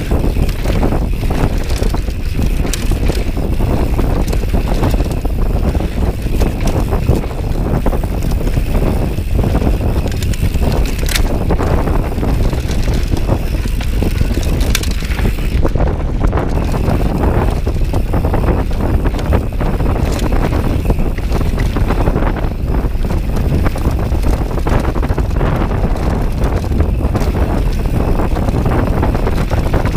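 Wind buffeting the microphone on a fast mountain bike descent, over the rumble of knobby tyres on a dirt trail and a steady clatter of the bike jolting over stones and roots.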